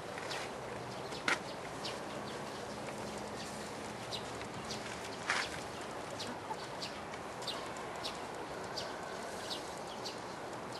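Steady outdoor ambience of a waiting spectator crowd, with short high chirps scattered throughout and two sharper clicks, about a second in and again about five seconds in.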